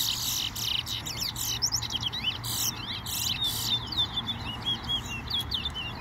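Caged songbird singing a long, fast run of short, high chirping notes, turning about halfway through into a quick rhythm of hooked notes at several a second.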